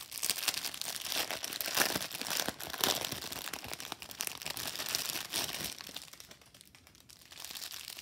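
Crinkly sound of a clear plastic bag full of small packets of diamond painting drills being handled and opened, in quick irregular crackles. It dies down about six seconds in, then starts up again near the end.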